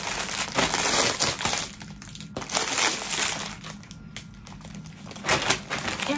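Clear plastic wrapping around packs of small plush teddy bears crinkling as it is handled, in several bursts with short pauses between.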